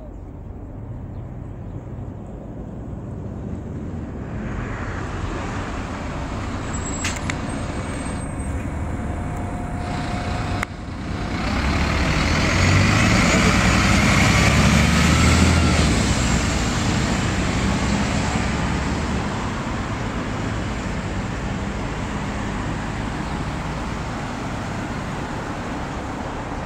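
Road traffic passing on a multi-lane road. A city bus drives by, loudest about halfway through, and cars follow.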